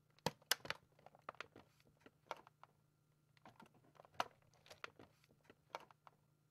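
Faint typing on a computer keyboard: irregular single keystrokes and short runs of clicks.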